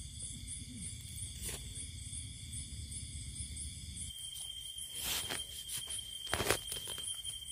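Insects calling steadily: a high, rapidly pulsing chirp over a steady trill, with a low rumble that stops about halfway through and a few short sharp noises a little later.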